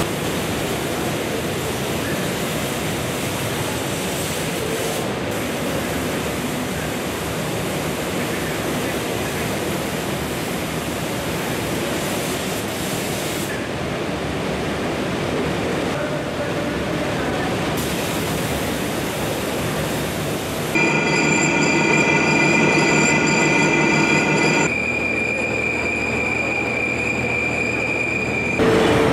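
Steady rushing hiss of a paint spray booth: a compressed-air spray gun and the water curtain falling behind the work. About two-thirds of the way in it gives way to a steady factory machine hum with a high, even whine.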